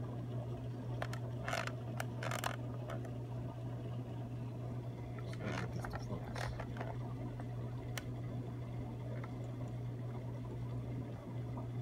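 Scattered scrapes and clicks of fingers handling the plastic casing of a submersible water pump, bunched about two seconds and six seconds in, over a steady low hum.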